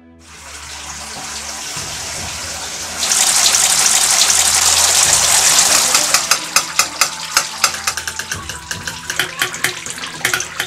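Sugar liquid being squeezed out of bagged glutinous-rice and malt mash under a wooden lever press. It builds from a trickle to a loud, steady gush about three seconds in, then breaks up into quick drips and splashes from about six seconds on.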